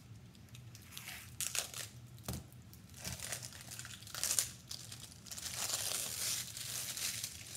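Crinkling and rustling of the wrapping on a rolled diamond painting canvas as it is handled and unwrapped, in irregular bursts that turn into a longer stretch near the end, with a light knock about two seconds in.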